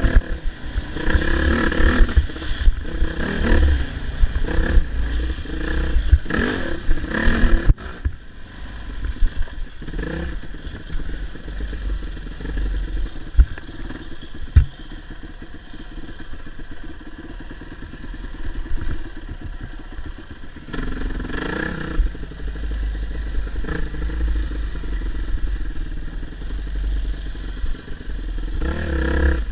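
Dirt bike engine revving up and down while being ridden. The revs are high for the first several seconds, ease off through the middle, and pick up again briefly about 21 seconds in and near the end.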